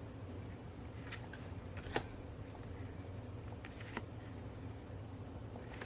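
Small cards and their packaging being handled: a few faint clicks and taps, the sharpest about two seconds in and another near four seconds, over a steady low hum.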